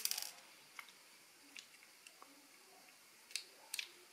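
Faint small clicks and taps of a soldering iron tip and fingers on a circuit board while desoldering an LED: a short cluster of clicks at the start, a few light ticks, then two sharper clicks near the end, with quiet in between.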